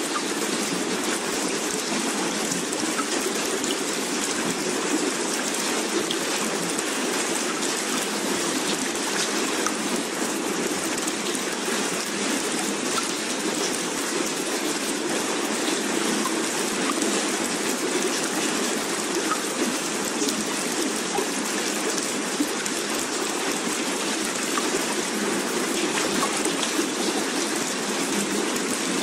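A steady, unchanging hiss of rushing water, like heavy rain or a stream.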